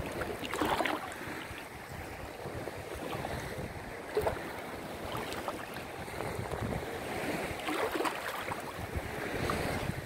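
Small sea waves lapping and sloshing around a person standing waist-deep in the water, with wind on the microphone. A few louder sloshes come about a second in, near four seconds and near eight seconds.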